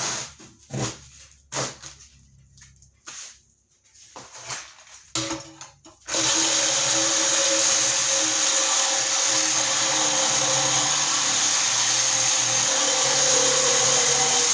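A few scattered knocks and clinks of metal being handled, then about six seconds in a reciprocating saw starts suddenly and runs steadily, its blade cutting through the metal body of a scrap air compressor.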